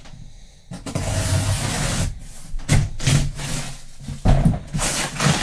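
Cardboard box and packaging being handled. About a second in there is a steady scraping stretch, followed by several short rubs, scrapes and knocks.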